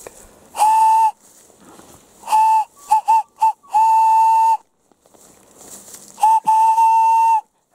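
A small handmade tube whistle blown as a signal whistle, the kind used to call for help when lost. It gives a series of blasts on one steady pitch, short toots mixed with longer held notes of nearly a second.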